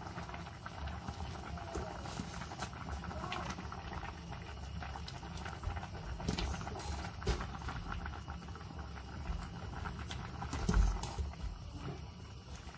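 Spaghetti boiling in a large stainless-steel pot of water, bubbling steadily, with scattered light clicks and knocks as a utensil stirs and lifts the noodles against the pot.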